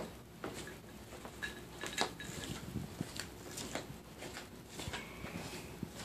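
Light scattered clicks and taps of small objects being handled on a table, with two faint short steady tones, one about two seconds in and one near the end.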